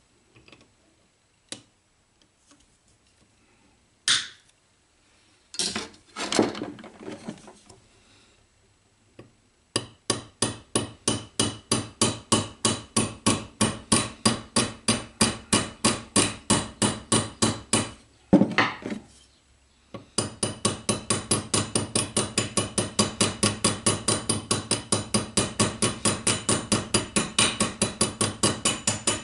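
Small hammer tapping rapidly on a steel workpiece clamped in a bench vise, each tap sharp and ringing. A few scattered knocks come first, then a steady run of taps at about four a second, one louder knock, and a faster run of taps.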